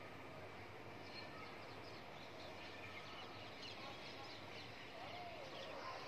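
Faint outdoor ambience with small birds chirping repeatedly in the background, and a brief faint wavering call about five seconds in.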